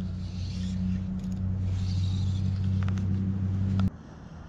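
A steady low hum with two pitched tones that cuts off suddenly near the end, with a faint hiss over it.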